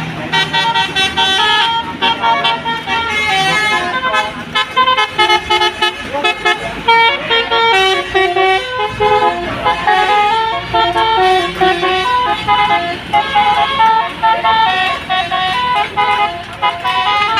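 Bus telolet horn, a multi-tone horn playing a tune as a long quick run of short tooting notes stepping up and down in pitch.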